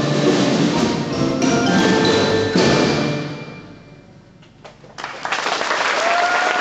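Percussion ensemble with mallet instruments playing its closing bars and ending on a final loud hit that rings away over about two seconds. After a brief lull the audience starts to applaud, with a rising whistle near the end.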